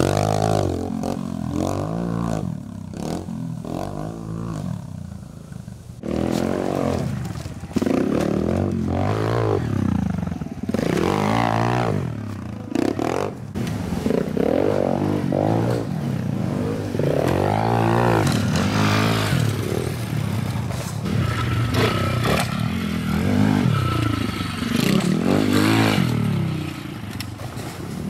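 Small pit bike engine revving up and backing off over and over as it is ridden over dirt jumps, its pitch rising and falling every second or two.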